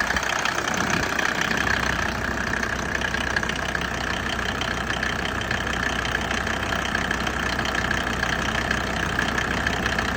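Mercedes OM605 five-cylinder diesel idling steadily with a light knocking. The owner says the knock starts once the glow plugs switch off after the warm-up phase, and that it is absent when the engine is warm.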